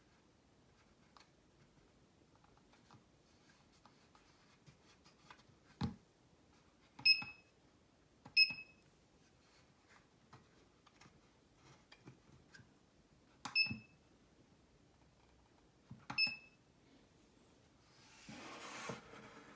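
A digital alarm clock's buttons are pressed four times at uneven intervals. Each press gives a click and then a short, high beep. There is a louder lone click about six seconds in and a brief rustle near the end.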